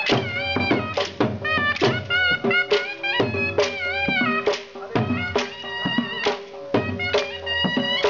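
Brahui chaap dance music: a dhol drum beating a steady rhythm of about two strokes a second under a wind pipe playing a wavering, ornamented melody.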